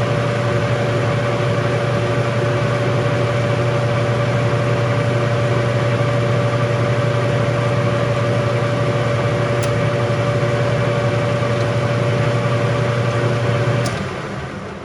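Metal lathe running steadily with a constant motor and gear hum while taking a facing cut in aluminum, then switched off and winding down about 14 seconds in.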